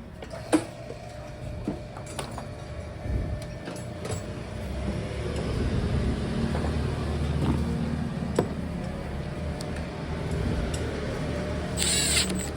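A low engine rumble that swells through the middle and then eases, with a few light clicks of handling, the first and loudest about half a second in, and a short high hiss near the end.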